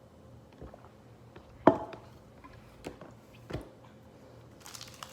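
Four knocks and taps of objects being handled, the loudest about a second and a half in with a short ring. Near the end, plastic MRE packaging begins to crinkle.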